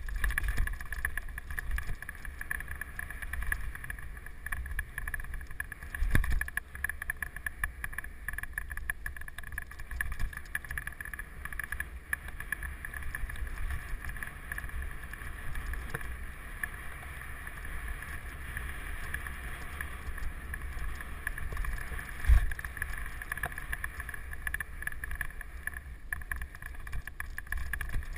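Wind rushing over the microphone and the rattle and rumble of a mountain bike descending a rough dirt trail, with heavy thumps from hitting bumps about six seconds in and again near the twenty-two-second mark.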